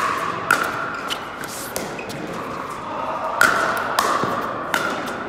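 Pickleball paddles striking the plastic ball in a rally: about six sharp pops, each with a short ring, echoing in a large indoor hall.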